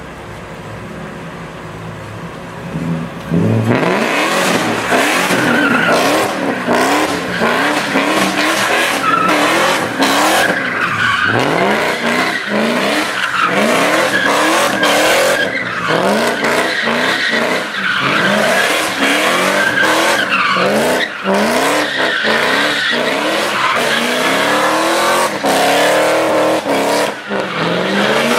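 BMW E30 doing donuts: the engine idles briefly, then from about three and a half seconds in it revs hard over and over in repeated rising sweeps while the tyres squeal and skid.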